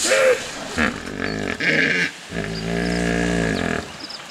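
A pod of hippopotamuses calling in the water: several short grunting honks, then one long, deep call beginning about two seconds in and lasting over a second.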